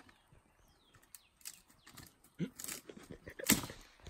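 Footsteps on a rocky path and leafy branches brushing past, heard as scattered knocks and rustles, with one sharp, much louder knock about three and a half seconds in.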